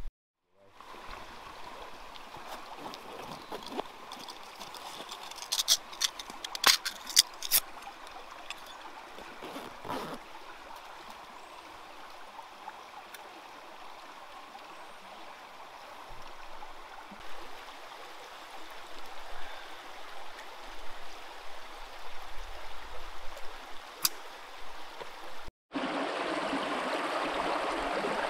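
Shallow stream running over stones, a steady trickling rush. A few sharp clicks come a few seconds in. Near the end the sound cuts to a louder, fuller rush of water.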